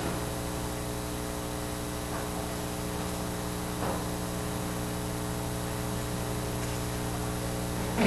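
Steady electrical mains hum with a buzzing stack of overtones and a faint hiss underneath.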